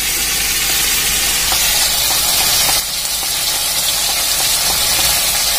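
Chicken and masala frying in hot oil in a kadhai, a steady sizzle that dips briefly about three seconds in.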